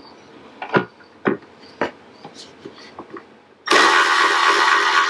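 A few sharp clicks, then about three and a half seconds in a cordless drill starts and runs steadily with a motor whine, driving a mounting screw for a wall faceplate.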